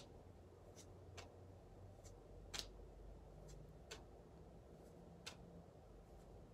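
Faint, irregular clicks of Weiss Schwarz trading cards being slid and flipped one by one through a small stack held in the hands, about one click a second, the loudest about two and a half seconds in.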